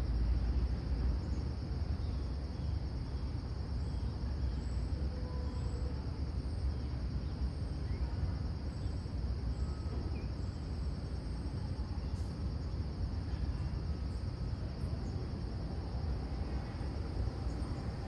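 Insects chirring steadily in a constant high drone over a continuous low rumble, with a few faint, short high chirps now and then.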